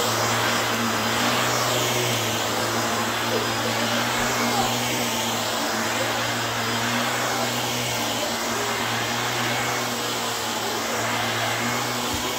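Compact Bissell upright vacuum cleaner running steadily on a shag rug: a steady motor hum under a rush of air.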